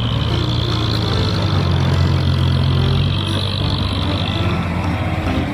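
Wheel loader's diesel engine running steadily as the loader works beside a dump truck: a low, even drone with a hiss over it.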